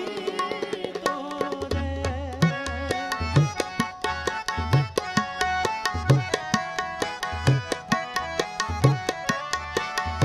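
Instrumental interlude of Sikh devotional kirtan: tabla playing a fast, steady rhythm, with deep bass-drum strokes that swell and bend in pitch, under held melodic notes.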